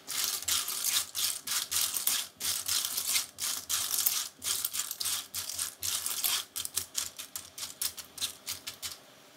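Lala clam shells clattering against one another and the nonstick wok as they are stirred with a spatula, a rapid run of scraping rattles, several a second, that stops shortly before the end.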